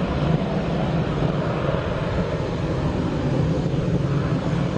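Boeing 727 climbing out after takeoff, its smoky low-bypass turbofans at climb power making a loud, steady jet rumble.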